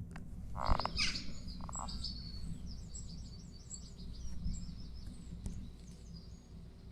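Small songbird chirping: a louder call about a second in, then a quick run of short, high chirps.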